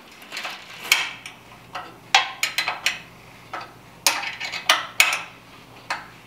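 Metal clanking and clinking as parts and tools are handled on an oil burner's sheet-metal housing during its teardown: about a dozen sharp, irregular knocks, each with a short metallic ring.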